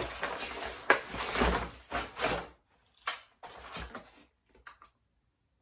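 Rustling and handling of packaging as a ring light's power cord is taken out of its box: a dense crackling rustle for the first couple of seconds, then a few lighter clicks and scrapes, cutting out about five seconds in.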